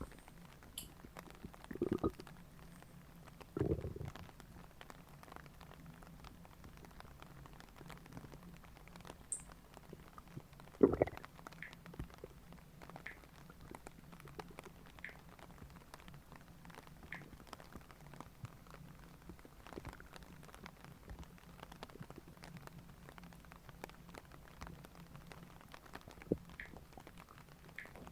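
Human stomach gurgling and rumbling, with louder gurgles about two, four and eleven seconds in and faint pops and squelches between them.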